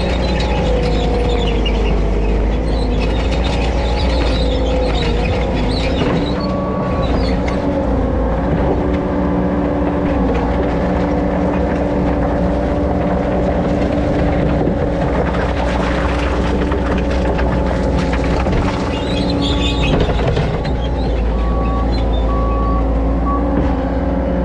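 Skid steer loader's diesel engine running steadily as the machine travels, its pitch shifting slightly, with the machine clattering and rattling throughout.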